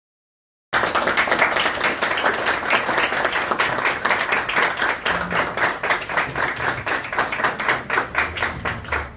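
A small crowd applauding with dense, close-set clapping that starts suddenly under a second in after silence and thins out near the end.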